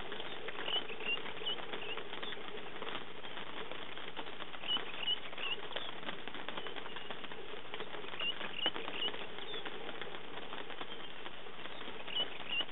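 Light rain pattering steadily in fine clicks, while a bird gives short phrases of three or four high chirps every three to four seconds.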